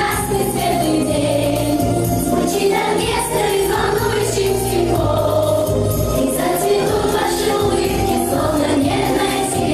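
A class of children singing together as a choir over a recorded backing track with a bass line and a light jingling percussion beat.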